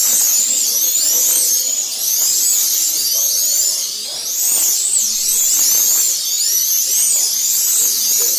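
Several Eurosport-class 1/32 slot cars lapping the track, their small electric motors whining high and overlapping, each pitch sweeping up and down over and over as the cars speed up and slow for the corners.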